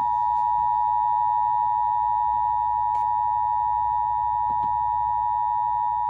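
Emergency Alert System attention signal from a TFT EAS 911 decoder: a steady, loud two-tone alert of 853 and 960 Hz sounding together, which follows the alert's data header and comes before the spoken severe thunderstorm warning.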